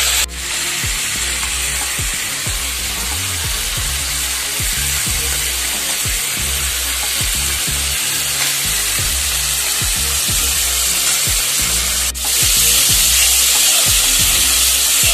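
Chopped vegetables and green peas sizzling in hot oil in a metal kadhai. A steel spatula stirs them, scraping and clicking against the pan. The sizzle gets louder for the last few seconds.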